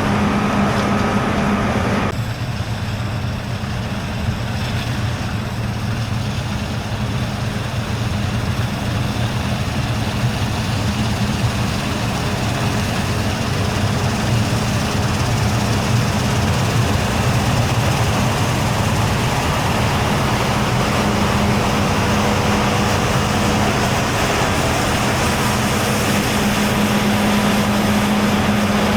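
Heavy harvest machinery running steadily with a deep diesel engine drone and a constant low hum. The sound changes abruptly about two seconds in.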